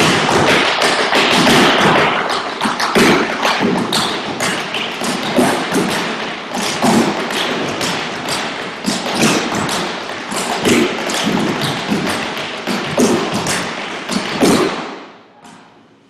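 Several dancers' tap shoes striking portable wooden tap boards in a fast, dense run of taps, many feet together, stopping about a second before the end.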